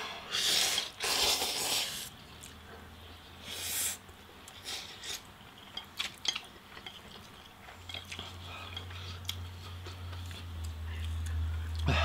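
People eating spicy instant noodles: a few noisy slurps in the first four seconds, then quiet chewing with scattered light clicks of chopsticks. A low steady hum comes in about eight seconds in.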